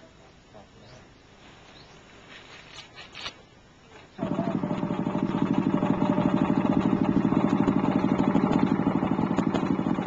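A small engine running at a steady speed with a rapid, even firing beat. It cuts in abruptly about four seconds in, after a few seconds of faint rustling.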